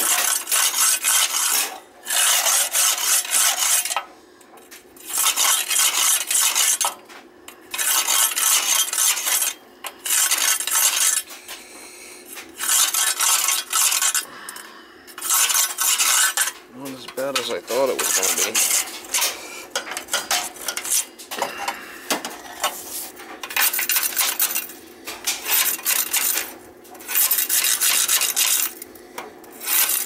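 Flue brush scraping soot out of the flue passages of a Peerless cast-iron oil boiler, in repeated strokes of a second or two each, clearing a boiler choked with soot.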